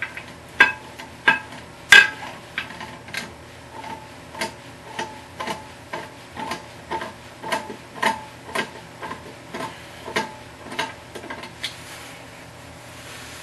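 Pliers working the nut on a toilet's brass closet bolt, making sharp metallic clicks about twice a second. A few louder clicks come in the first two seconds, and the clicking stops near the end.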